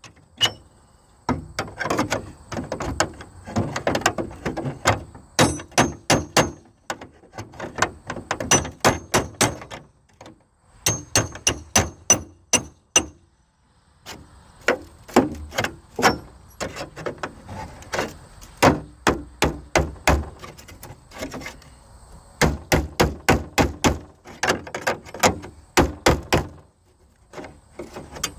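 Repeated sharp knocks and thuds, coming in quick runs of several strikes with short pauses between them.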